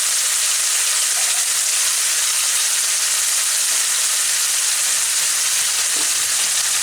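Hot mustard oil sizzling steadily in a pan with a spice tempering of mustard seeds, dried chillies and bay leaves, tamarind and turmeric just added.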